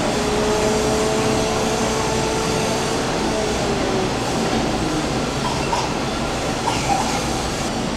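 Steady background din of a busy market stall: a continuous rumble, with a faint steady tone through the first three seconds or so.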